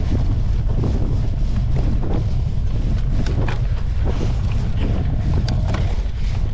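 Wind buffeting a handlebar-mounted GoPro on a moving cyclo-cross bike, a steady low rumble, with scattered knocks and rattles from the bike over the ground.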